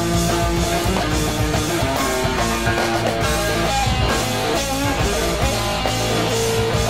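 Background rock music led by electric guitar.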